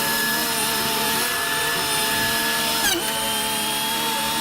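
Forestry machine running with a steady high-pitched whine over a hiss, with an abrupt break about three seconds in, after which the whine carries on at a slightly different pitch.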